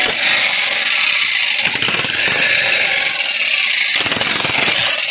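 16 kg demolition breaker hammering its chisel into concrete, a steady rapid hammering throughout.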